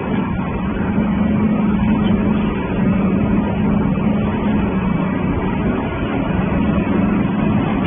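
Industrial waste-rag shredding line running: shredder and belt conveyor giving a steady, dense mechanical din with a constant low hum.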